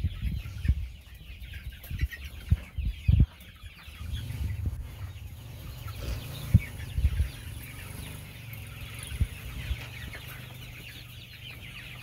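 A flock of six-week-old chickens cheeping and clucking continuously, with a few low thumps in the first few seconds.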